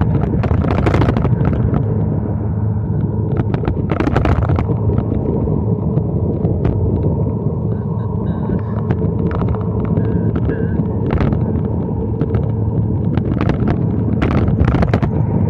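Motor vehicle being ridden: a low, steady engine and road drone with frequent short crackles over it.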